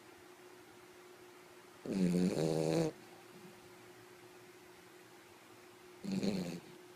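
French bulldog snoring in its sleep: two loud, pitched snores, one about two seconds in lasting about a second and a shorter one near the end, with a faint steady hum between them.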